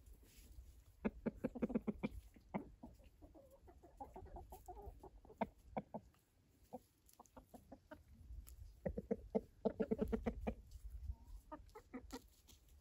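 Chickens clucking quietly while foraging, in two spells of rapid clucks, about a second in and again near nine seconds, with scattered single clucks between.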